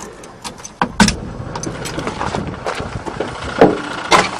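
A 1977 GMC 4x4 truck's engine being cranked over by its starter after a carburetor rebuild: a sharp click about a second in, then steady cranking while the fuel pump refills the carburetor, with another sharp knock near the end.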